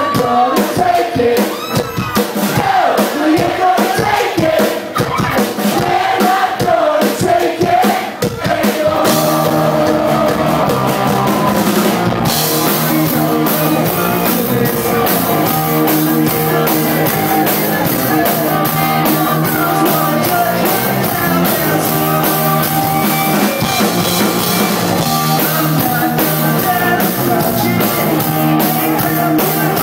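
Live rock cover band playing a medley: a male singer over drums, bass and guitar. About eight seconds in, the music changes to a new steady groove, and cymbals come in a few seconds after that.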